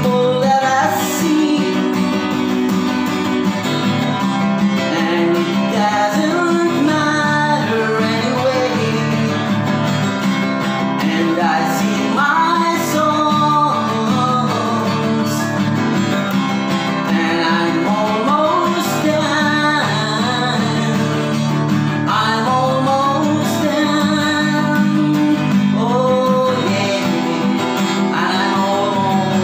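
A woman singing to her own acoustic guitar accompaniment, recorded raw on a phone: sung phrases rise and fall every few seconds over steady guitar playing.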